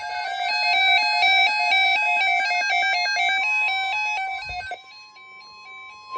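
NOAA weather radio alert sounding: a rapid electronic beep jumping back and forth between two pitches, which stops shortly before the end. About halfway through, a faint steady single tone comes in underneath: the weather radio's alarm tone, signalling an incoming alert.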